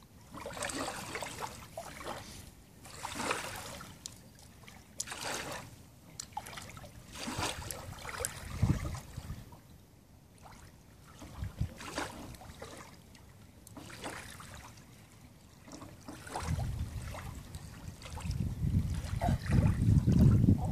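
Shallow water sloshing and lapping at the edge of a concrete boat ramp, in soft surges every two seconds or so. A low rumble builds over the last few seconds and is the loudest thing heard.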